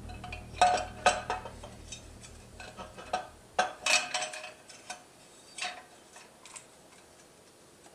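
Light metallic clinks and knocks as the aluminium cylinder block of a Honda CBR1000F engine is lowered over the cylinder studs onto pistons held in piston ring compressors. The clinks come in small clusters, busiest in the first half and sparser toward the end.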